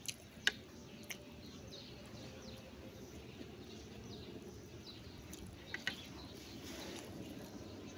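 Quiet eating by hand: a few sharp mouth clicks and lip smacks while chewing, the loudest about half a second in and another pair near six seconds, over a low steady outdoor rumble.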